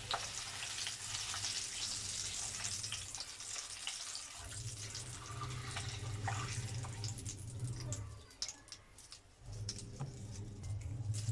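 Curry leaves frying in hot oil: a steady sizzle with many scattered crackles and pops.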